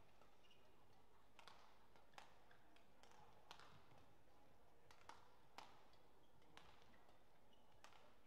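Badminton rackets hitting a shuttlecock back and forth in a rally: faint, sharp hits about once a second, about seven in all, over a low background hum of the hall.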